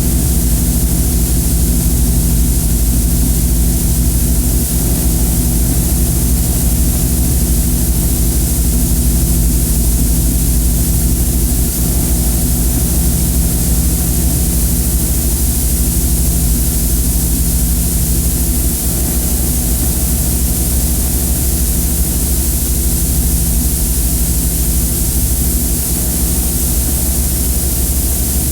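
Harsh noise wall recording: a loud, unchanging hiss over a low steady hum that does not stop or change.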